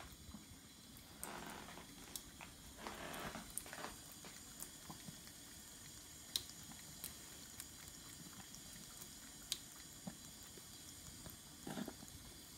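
Thin stream of tap water trickling faintly into a kitchen sink as a Ragdoll cat laps from it, with scattered small ticks and a few brief louder rustles.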